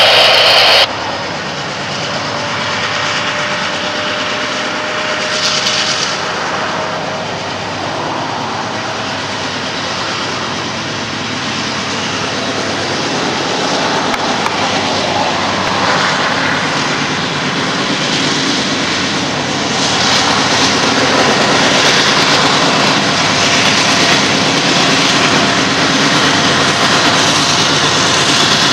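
Norfolk Southern diesel locomotives running hard under throttle as they haul a freight train, a steady heavy engine noise that grows louder about twenty seconds in. A loud horn blast cuts off about a second in.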